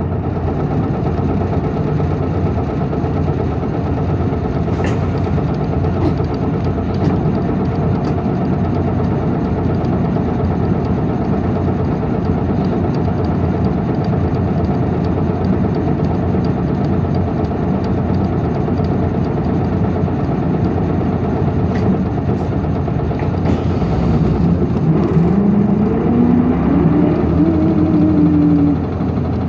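Interior running sound of an Isuzu Erga city bus (PKG-LV234L2), heard from the back seat above the rear-mounted diesel engine: a steady engine and road drone. This bus is noted for an abnormal noise. Near the end a whining engine note rises and falls.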